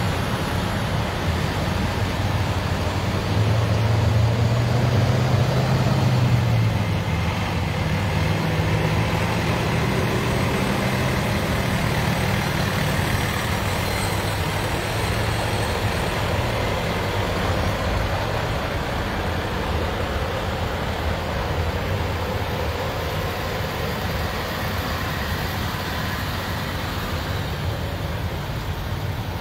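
Engines of a line of tow trucks driving past, a steady heavy rumble with road noise. One truck's engine note swells louder from about three to seven seconds in.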